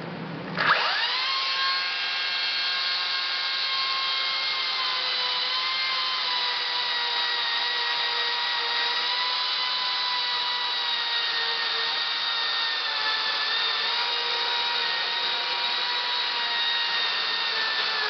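Makita DUC353 36-volt brushless cordless chainsaw starting up about a second in with a quick rising whine, then running steadily as it cuts through a dry oak beam. Its pitch sags slightly under load at times and dips near the end.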